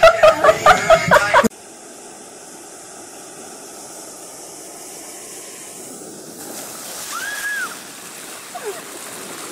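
Music with a heavy beat that cuts off suddenly about a second and a half in, then the steady wash of ocean surf on a sandy beach. The surf swells as a wave rushes up over the sand near the end.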